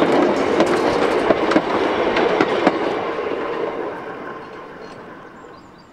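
Narrow-gauge railway goods wagons rolling past, their wheels clicking and clattering over the rail joints. The rumble fades away over the last couple of seconds as the train moves off.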